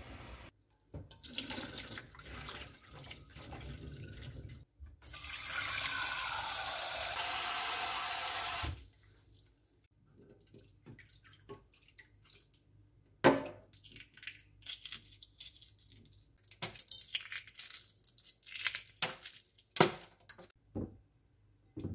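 Rice being washed by hand in a pot in a kitchen sink: water sloshing as the grains are stirred, then tap water running steadily into the pot for about four seconds, then the rice being rubbed and swished, with scattered small knocks and clinks.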